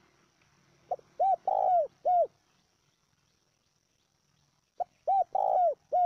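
Spotted dove cooing: two calls about four seconds apart, each a short note followed by three coos, the middle coo the longest and each coo rising and falling in pitch.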